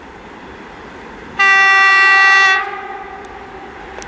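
VL11 electric locomotive sounding its horn once, about a second and a half in: a single steady blast of a little over a second. The rumble of the approaching freight train runs underneath.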